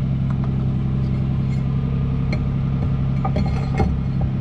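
Toyota Tacoma engine idling steadily. A few metal clinks and a single clunk come near the end as a hitch ball mount is slid into the truck's receiver.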